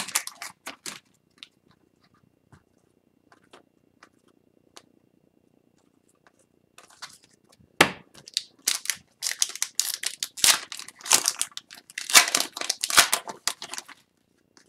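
Hockey card pack wrapper crinkling and tearing as it is opened by hand: a short burst at the start, a few seconds of near quiet with scattered light ticks, then a long run of crinkling from about seven seconds in, with a sharp snap around eight seconds.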